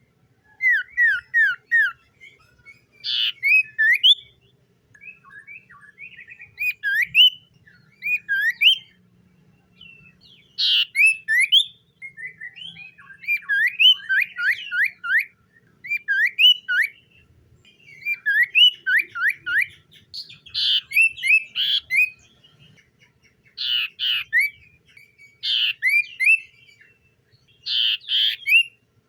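Common iora singing: repeated phrases of three to five quick sweeping whistled notes, some with harsh, rasping notes mixed in, a new phrase every couple of seconds.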